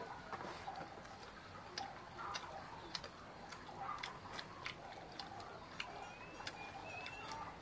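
Faint, irregular clicks and smacks of people chewing and eating with their fingers from plates.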